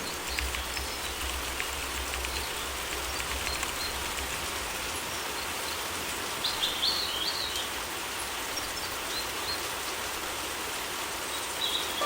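Steady summer rain falling, with a short bird call about halfway through and another near the end.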